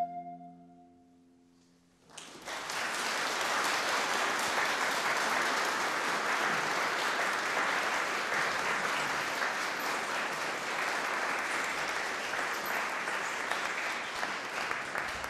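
The last held note of a wind instrument and lute dies away in the first second. About two seconds in, the audience breaks into steady applause that runs on to the end.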